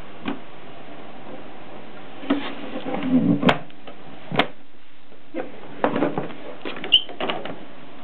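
Hard carrying case of an Olympia SM3 portable typewriter being closed: rustling and handling knocks, then several sharp clicks as the metal latches are fastened.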